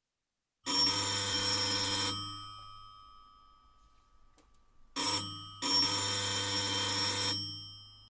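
Apartment electric doorbell ringing three times: a ring of about a second and a half, a brief one, then another of about a second and a half, each dying away after it stops.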